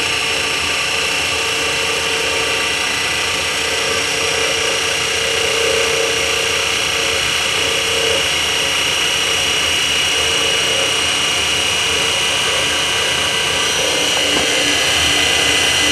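Large DC motor, rated for 220 V DC but running off 24 V DC batteries, running steadily with an even hum and a steady high whine.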